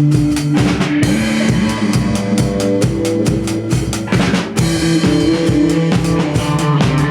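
Rock band playing an instrumental passage: a drum kit keeps a steady beat of bass drum and snare over held bass and guitar notes, with a denser cymbal wash for a few seconds in the middle.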